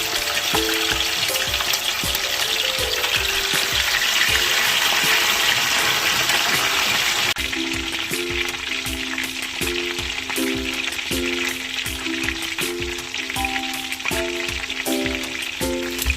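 Chicken frying in hot oil, a steady sizzle that cuts off abruptly about seven seconds in. Background music plays throughout.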